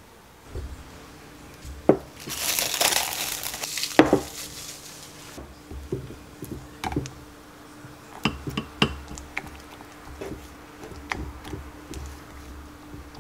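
A spatula scrapes thick peanut butter out of its jar into a glass measuring cup with a loud scraping, crackling stretch. It then stirs the peanut butter in the cup, knocking and scraping against the glass many times.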